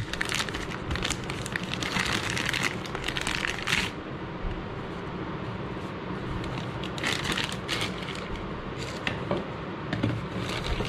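A thin plastic packaging bag crinkling and crackling as a camera charger is pulled out of it, for about four seconds. After a pause there are shorter bouts of plastic rustling, at about seven seconds and near the end.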